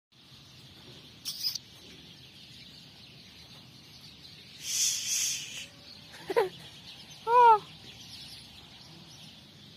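Two short animal calls: a falling call about six seconds in, then a louder call that rises and falls, just after a second or so of hissing noise.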